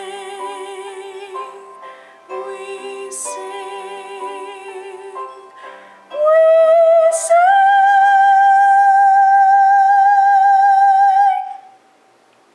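Female solo voice singing over accompaniment, then rising about halfway through to a loud high final note held with vibrato for about five seconds before cutting off.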